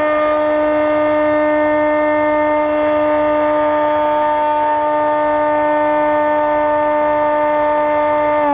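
Bixler RC plane's electric pusher motor and propeller in flight, a steady buzzing whine holding one pitch, with rushing air noise beneath; the pitch drops slightly at the very end.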